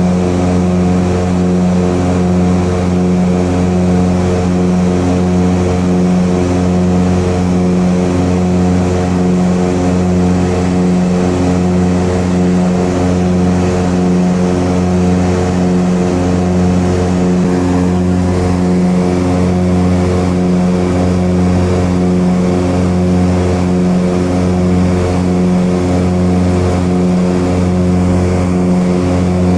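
Steady drone of the chase aircraft's engine, heard from aboard: a low hum with evenly spaced tones above it, holding one pitch throughout.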